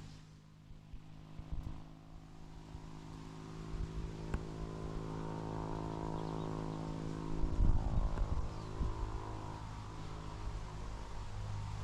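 A distant engine drones steadily, swelling over several seconds and then fading, as a motor vehicle passes at a distance. A few low bumps of wind or handling noise come near the middle.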